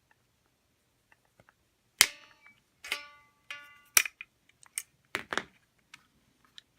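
Sharp metallic snaps and clicks, about half a dozen over three seconds starting about two seconds in; the first is the loudest and rings briefly. A steel spring on a robot vacuum's drive-wheel assembly is being pried off and released with a dental pick.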